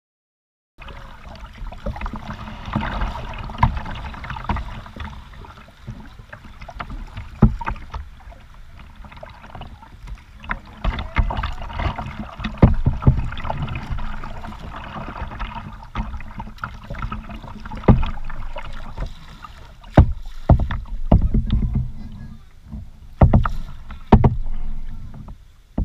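Kayak paddling: the double-bladed paddle dipping and splashing and water washing along the plastic hull, starting about a second in. Sharp knocks recur every few seconds through it.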